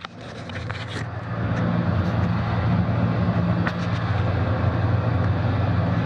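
A running steam boiler gives a steady low mechanical hum and rush, typical of its burner and blower firing. It fades up over the first couple of seconds, then holds steady with a few light taps.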